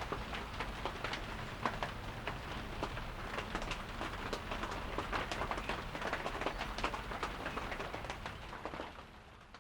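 Rain falling, many separate drops ticking sharply on surfaces over a steady patter. It fades out near the end.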